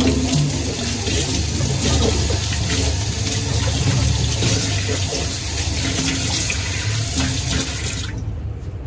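Kitchen tap running steadily into a sink, water splashing, then shut off abruptly about eight seconds in.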